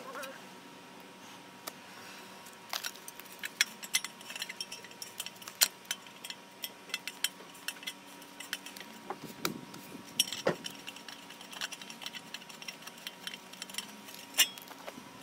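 Irregular light metallic clinks and clicks of hand tools and bolts against the front locking hub of a Ford F-150 4x4 as the hub is unbolted and pulled off the wheel hub. The two sharpest clinks come about five and a half seconds in and near the end.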